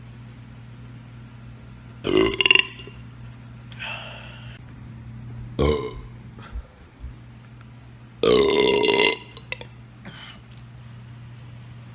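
A man belching several times in a row: a loud burp about two seconds in, a fainter one around four seconds, a short one near six seconds, and the longest, loudest belch at about eight seconds.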